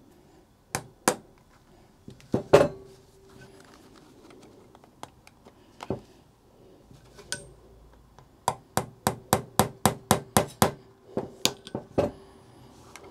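Handling of tools and a small drill bit on a workbench: a few sharp clicks and knocks, one with a brief ring, then a quick run of about a dozen clicks, roughly four a second, in the second half.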